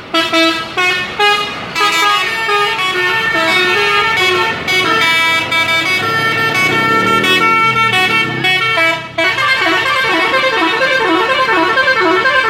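Indonesian bus 'telolet' horn, a multi-tone musical air horn, playing a tune of short notes of changing pitch. About nine seconds in it switches to a faster, warbling tune.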